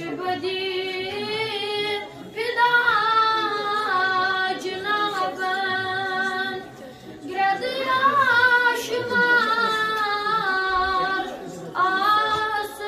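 A boy singing a Kashmiri naat, a devotional poem in praise of the Prophet, unaccompanied into a microphone. He holds long, ornamented phrases with short breaks for breath about every five seconds.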